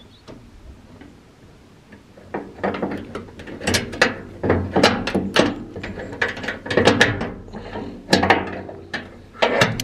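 Brass four-dial combination padlock being worked by hand: its dials clicking as they are turned and the lock clacking against the container door's metal latch. Irregular sharp clicks and rattles start about two seconds in and keep coming.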